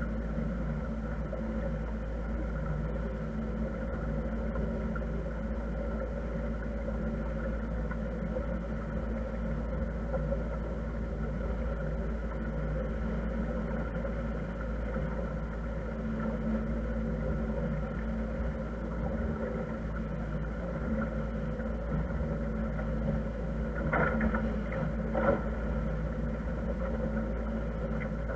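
Motor cruiser's engine running steadily while the boat is underway: a constant hum and low rumble. Two short, louder sounds come near the end.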